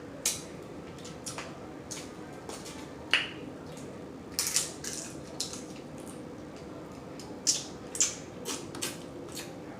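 A person eating steamed blue crabs by hand: shells cracked and picked apart, with mouth smacking. It comes as about a dozen short, sharp cracks and clicks at irregular intervals, some in quick pairs.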